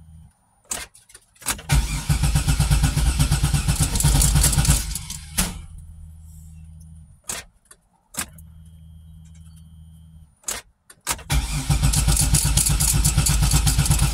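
A car engine being cranked by its starter twice, each time for about three seconds without catching, with clicks and a low steady hum in the pause between tries. The engine won't fire; the owner wonders if the tank is too low on gas, and the repeated cranking is running the battery down.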